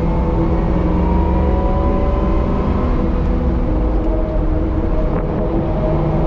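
The 1969 Camaro Z/28's 302 V8 running steadily under way, its engine note holding level with slight rises in pitch.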